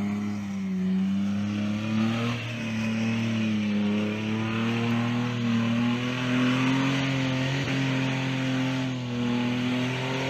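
Toyota Land Cruiser's 4.5-litre petrol straight-six engine pulling under load as the four-wheel drive climbs a steep slope. The engine note is steady, dipping and rising slightly with the throttle, and creeps gradually higher through the climb.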